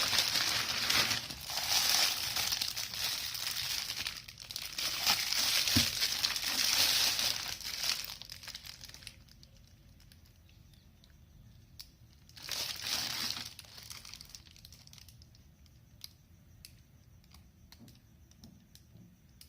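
Packaging being unwrapped from resin moulds, crinkling and rustling in bursts for about eight seconds, then once more briefly about thirteen seconds in, followed by a few light clicks.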